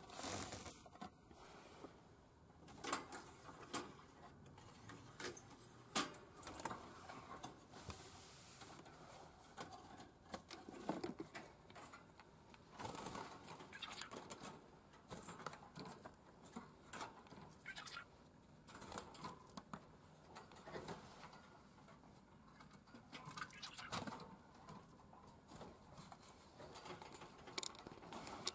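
Quiet scattered taps, clicks and rustles of a plastic birdseed feeder and its seed being handled and set on a digital scale.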